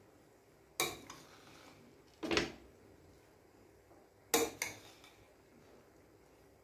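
Metal ladle knocking and scraping against the pressure cooker while cooked rice is turned over: three distinct knocks about a second and a half apart, the last one doubled.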